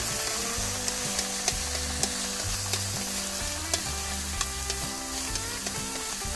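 Chicken giblets and garlic sizzling in a hot wok while being stirred with long wooden chopsticks, which click against the pan at irregular intervals. The giblets have just gone in and are being fried until they firm up.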